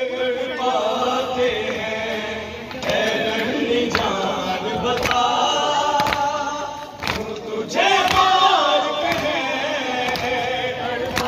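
An Urdu noha lament chanted by a male reciter through a microphone, with the mourners answering in chorus. Hand-on-chest matam strokes fall roughly once a second.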